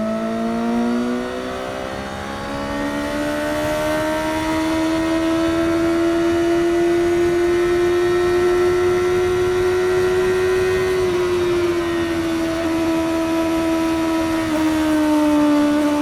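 Suzuki GSX-S750's inline-four engine through its stock exhaust, riding at highway speed with a steady, rising engine note. The pitch climbs slowly through the middle, eases off a little around two-thirds of the way in and steps down again near the end.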